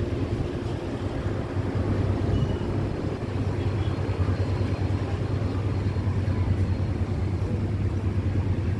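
Passenger ferry's engines running, a steady low hum carried through the deck.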